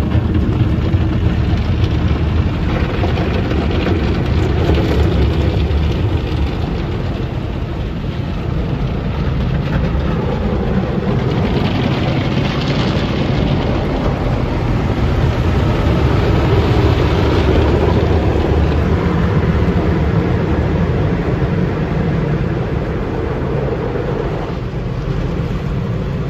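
Automatic car wash spraying water over the car, heard from inside the cabin as a loud, steady rush of water with a low rumble; the spray hisses harder about 12 seconds in and again a few seconds later.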